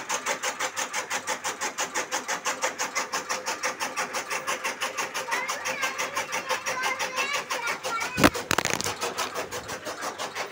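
Electric-motor chaff cutter chopping green sorghum stalks, its flywheel blades slicing in a rapid, even rhythm of about seven chops a second. About eight seconds in, a sharp knock as the phone recording it falls, after which the chopping sounds muffled.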